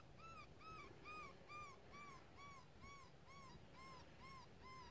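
Coyote-style whimpering: a string of about a dozen evenly spaced whining notes, each rising and then falling in pitch, about two a second.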